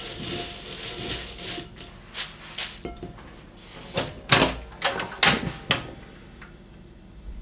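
Dry-roasted lettuce stems rustling and rattling against a metal mesh strainer as they are sifted, then a series of about seven sharp clicks and taps spread over the next few seconds.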